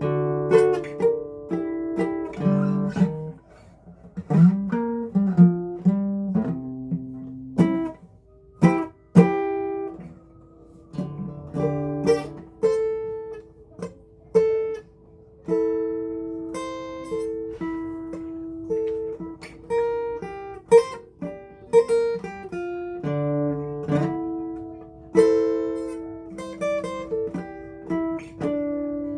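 Acoustic guitar played solo: plucked notes and strummed chords ringing out, with a low bass line moving under repeated higher notes.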